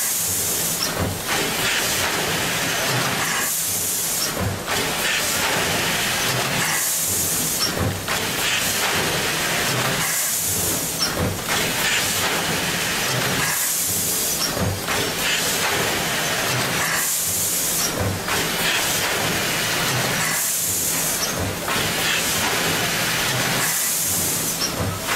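Automatic seed-bagging machine running through its cycle. A sharp burst of air hiss, typical of pneumatic actuators venting, comes about every three and a half seconds over a steady mechanical clatter.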